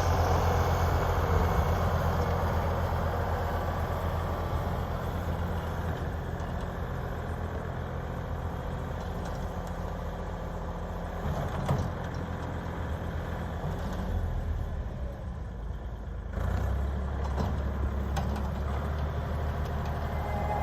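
Ford 3600 tractor running a snow blower: a steady low engine drone over a noisy rush. A single knock comes near the middle, and the engine gets louder about sixteen seconds in.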